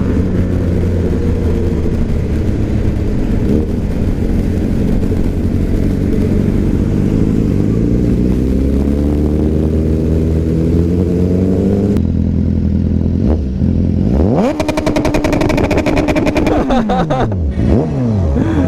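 BMW HP4's inline-four superbike engine being revved for a sound check. Its pitch rises slowly for most of the first part, then from about two-thirds of the way in it is blipped hard several times, sweeping up quickly and dropping back.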